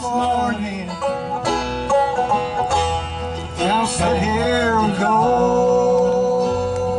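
Live bluegrass band playing a song with banjo, mandolin, acoustic guitar and bass, while a man sings the lead vocal and holds a long note near the end.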